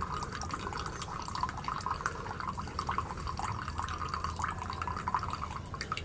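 Espresso running and sputtering from an AMA Milano espresso machine's portafilter into a ceramic cup as the top valve is opened, a continuous crackle of many small irregular drips over a low hum.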